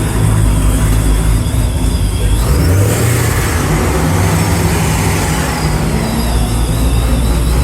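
Chevrolet Camaro engine running with a high whistle over it. The whistle climbs sharply in pitch with a rev about two and a half seconds in, then slides back down as the revs fall. It is the unexplained whistling noise the car is known for.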